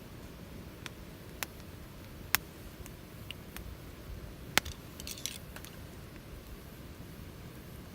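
Wood fire crackling: a few sharp, separate pops, the loudest about two and a half and four and a half seconds in, with a short flurry of small crackles just after five seconds.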